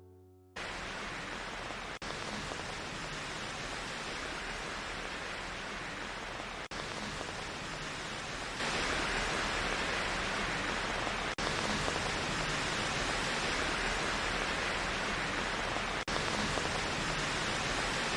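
Steady rain falling, a dense even hiss that starts about half a second in. It drops out for an instant four times, gets louder about eight and a half seconds in, and stops abruptly at the end.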